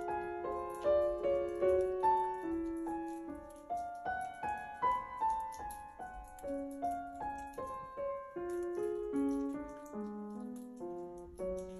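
Background piano music: a melody of separate notes over lower chords, at an even, unhurried pace.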